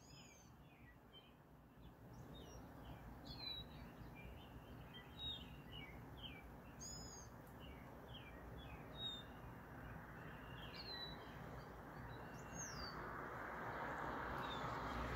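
Small songbirds chirping, many short, quick calls, over a steady rush of rain that grows louder near the end.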